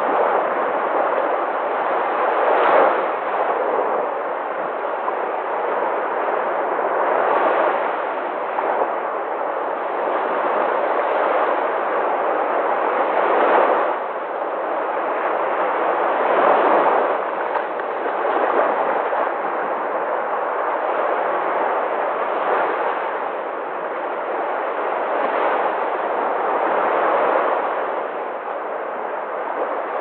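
Small ocean waves breaking and washing up a beach: a continuous rush of surf that swells and eases every few seconds as each wave comes in.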